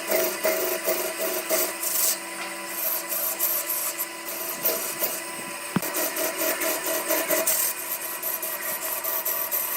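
Wood lathe running, its motor humming steadily, while a tool rubs and scrapes against the spinning wood in quick repeated strokes, with a single sharp tick about six seconds in.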